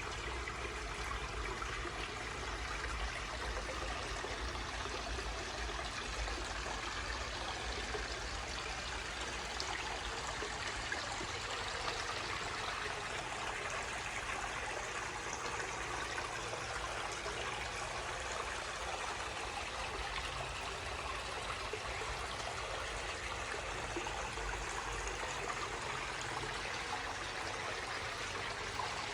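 Water from a short garden stream splashing and trickling over a small waterfall into a pond, running steadily.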